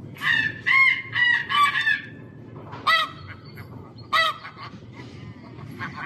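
Recorded goose honking played back through an electronic game caller. There are about four honks in quick succession, then two single honks a second or so apart.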